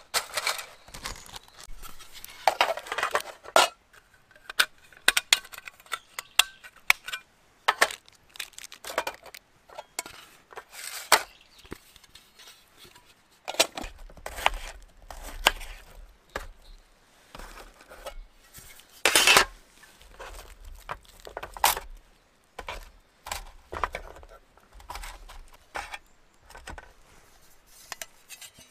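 Camp cooking handling sounds: dry spaghetti and aluminium mess tins clinking and tapping under the hands. From about halfway, a knife cuts an onion on a bamboo cutting board, with soft knocks of the blade on the board.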